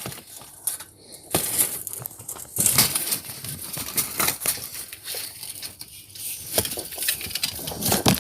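Irregular rustling and crackling right on the microphone, with scattered sharp clicks and knocks: handling noise of a phone being moved around.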